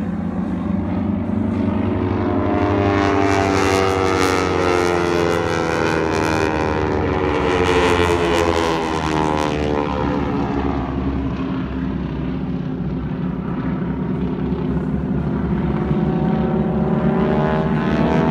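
Engines of a formation of aerobatic airshow aircraft flying overhead. The drone swells and then sweeps down in pitch about halfway through as they pass, and builds again near the end.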